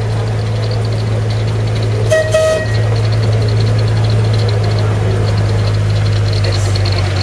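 A 15-inch gauge diesel locomotive's 2-litre Perkins engine runs steadily as the train approaches, with a short horn toot about two seconds in.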